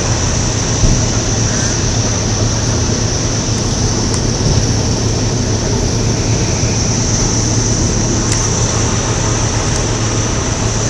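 Fire trucks' engines running at a fire scene: a loud, steady low drone that holds without change.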